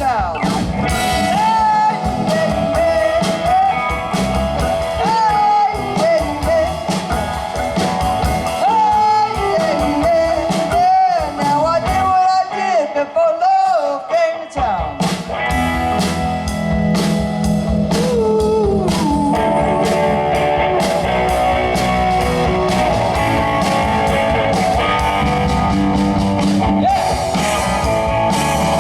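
Live blues-rock band playing an instrumental passage: a lead guitar plays bent, wavering notes over drums and bass for about the first half, then the full band settles into steady chords.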